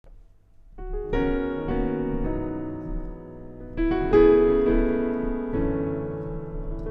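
Piano playing a slow run of rich, full chords, each left to ring; the loudest chord comes about four seconds in.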